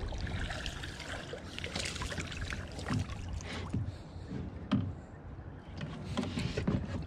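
Water lapping and splashing against a plastic sit-in kayak's hull, with a few short knocks on the hull scattered through.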